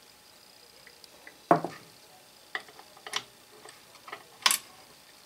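Scattered light metal clicks and taps as the small die-cast connecting rod and brass piston of a toy steam engine are handled and fitted onto the crank, with a duller knock about a second and a half in.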